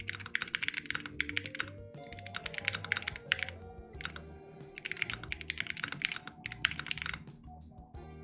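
Fast typing on a mechanical keyboard: rapid runs of key clacks in three bursts with short pauses between, over background music.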